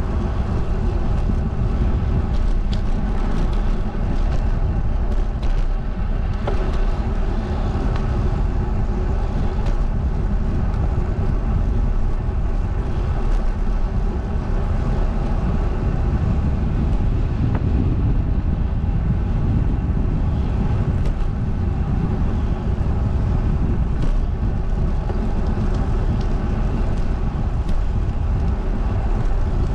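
Wind rumbling on the camera microphone of a moving bicycle, over a steady hum of road noise, with a few faint clicks.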